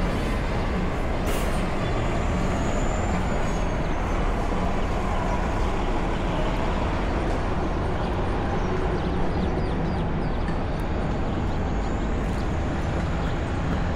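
City street traffic: buses and cars running along the road, a steady rumble.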